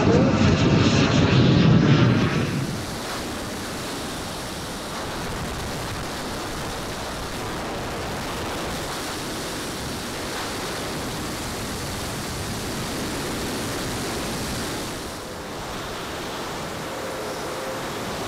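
For the first couple of seconds, the model Vulcan's four JetsMunt 160 gas turbines heard from the ground, a loud jet whine wavering in pitch as the aircraft passes. About two and a half seconds in it cuts to a steady rushing hiss of airflow over a camera mounted on the flying model, with a brief dip near the end.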